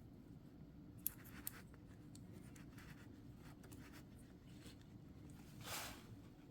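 Faint scratching and small clicks of a metal pick tool prying apart the plastic sensor plug of a BMW battery safety terminal cable, with two sharp clicks about a second in and a short scrape near the end.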